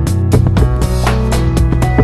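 Background music with a steady drum beat over bass and pitched instruments.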